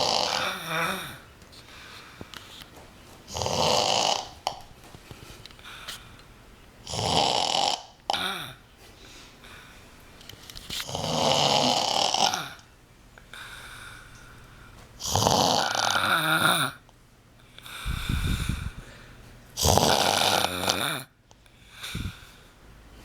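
A young woman snoring loudly in her sleep. Each snore lasts about a second and they come about every three to four seconds.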